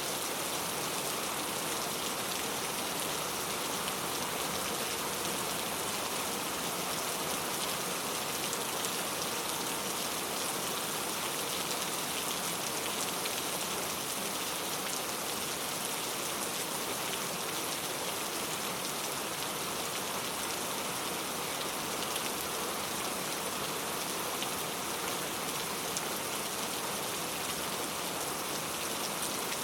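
Very heavy rain falling steadily, a dense even hiss of drops with faint individual taps.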